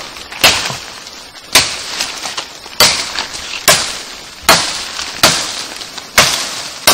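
Footsteps crunching through dry leaf litter and twigs on a forest floor, a sharp crunch a little under once a second.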